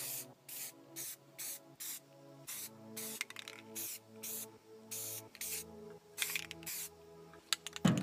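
Aerosol can of semi-gloss black spray paint hissing in a rapid series of short bursts, about two a second, over background music.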